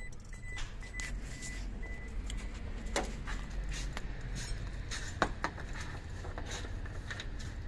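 Scattered light metallic clicks and taps, a few at a time, from keys and tools being handled, over a steady low background rumble.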